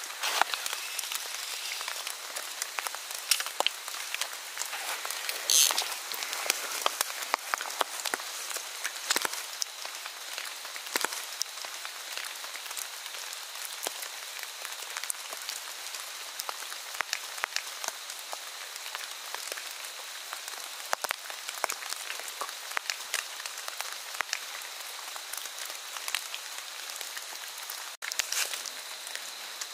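Rain pattering on leaves and the forest floor: a steady hiss peppered with scattered drop ticks, with a faint steady high tone behind it.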